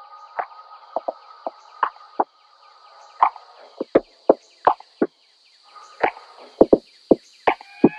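A hand stapler clacking again and again as paper is stapled to a hard classroom wall: about twenty sharp, irregular snaps, with a short pause partway through. The stapler is one its user finds poor on this kind of wall. A faint steady high hum runs underneath.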